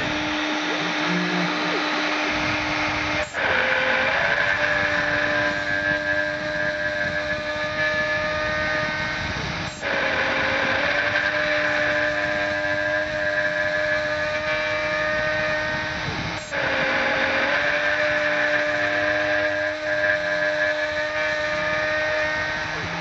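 Desktop CNC milling machine running a cut: a steady spindle whine over a dense cutting noise. About every six and a half seconds the sound briefly dips and the pitch drops and recovers as an axis slows and reverses on its next pass.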